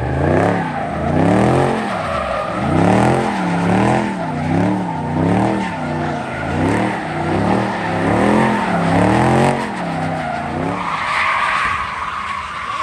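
Chrysler 300 sedan doing donuts: its engine revs up and down about once a second as the rear tyres skid and screech on the asphalt. The revving dies away about eleven seconds in, leaving higher tyre-screech noise.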